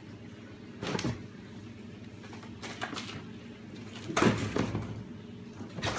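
Cardboard box being knocked and scraped across a hard floor as kittens pounce on and into it, in four short bursts, the loudest about four seconds in.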